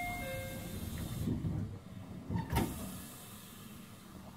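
313 series EMU door chime sounding briefly, then the train's sliding doors running shut with a rush and closing with a knock about two and a half seconds in, leaving a steady low hum.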